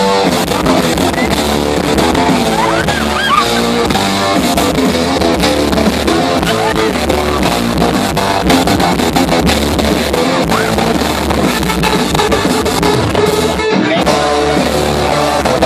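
Rock band playing live and loud: electric guitar and a drum kit.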